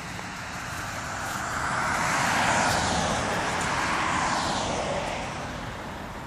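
A passing vehicle: a rushing noise that swells to a peak about three seconds in, then fades away.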